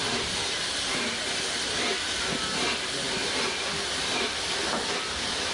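LNER Peppercorn A1 Pacific steam locomotive 60163 Tornado moving off with its train, a steady hiss of steam escaping around its cylinders, typical of open cylinder drain cocks as the engine gets under way.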